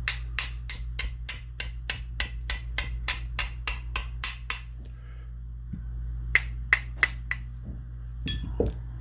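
Small hammer tapping a part into a side-by-side shotgun during reassembly: light, sharp metallic taps with a high ring, about three a second in a long even run, then a pause and a shorter run of five taps.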